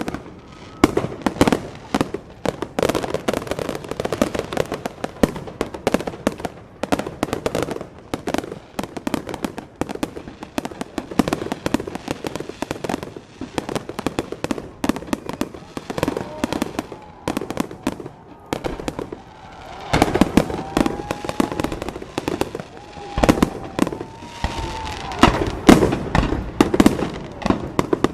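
Many fireworks going off at once, a dense, continuous run of rapid pops, bangs and crackles with no break.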